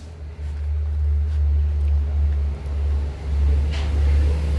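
Low rumble of sawmill machinery that rises about half a second in, then swells and dips.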